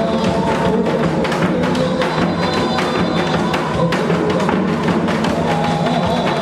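Janggu, Korean hourglass drums, struck in a quick, steady run of strokes along with a backing music track.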